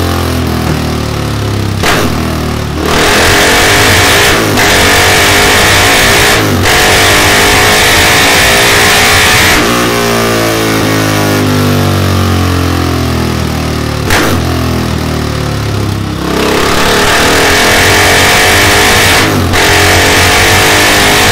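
KTM 690 Duke's single-cylinder engine through a Delkevic 14-inch oval carbon-fibre muffler with decat link pipe, run hard on a dyno. It pulls up to high revs in two long loud runs with a quieter, lower-revving stretch between them, with brief dips in the sound mid-pull and a few sharp cracks.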